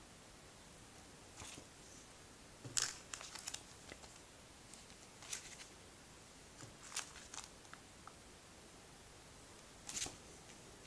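Thin plastic comic bags crinkling and rustling as bagged comics are flipped through and lifted one by one, in a few short, faint spells.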